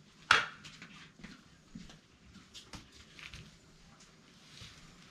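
One short, sharp sound about a third of a second in, then faint light taps and rustles of a hand grater being worked over a bowl of grated food.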